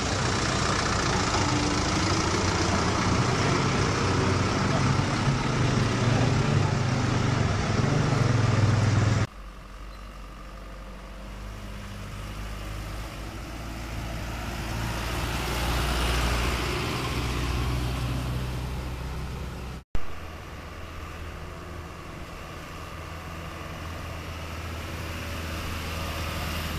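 Truck engine running in three joined clips that cut abruptly. It is loudest in the first nine seconds, then quieter and swelling and easing again around the middle, then steady.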